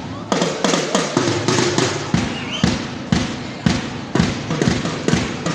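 Live student percussion band: drum kit toms and bass drum beating a steady rhythm of about three strokes a second, with a pitched melody line over the drums in the first couple of seconds.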